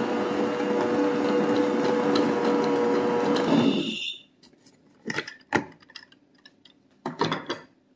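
Electric stand mixer running with a steady hum as it blends a stiff powdered-sugar, butter and corn-syrup candy filling, switched off about four seconds in. A few short plastic clicks and knocks follow as the beater is lifted off the bowl's center post.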